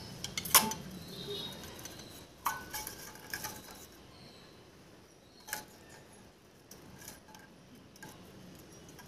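Metal spoon clinking and scraping against a steel bowl of melted chocolate, a few scattered clinks with the sharpest about half a second in.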